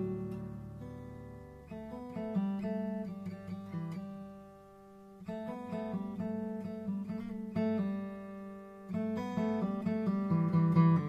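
Background music played on an acoustic guitar, with plucked notes and strums.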